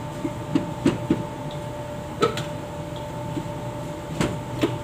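Plastic blender jar and lid being handled and fitted: several short clicks and knocks, the sharpest about two seconds in and near the end, over a steady background hum. The blender motor is not running.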